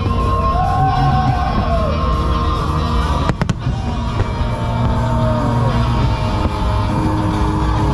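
Fireworks booming with music playing over them, and sharp cracks from bursts about three and a half seconds in and again at the end.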